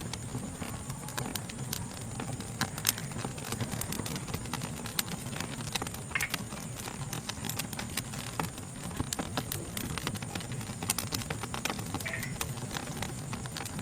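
Wood fire crackling with sharp, irregular pops, over a constant high-pitched chorus of night insects.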